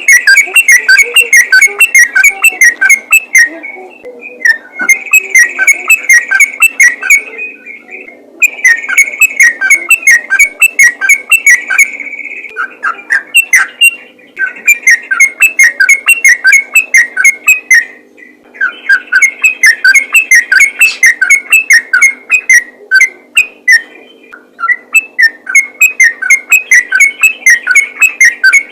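Yellow-vented bulbul singing loudly in a fast run of rapid, repeated notes, bouts of several seconds broken by short pauses.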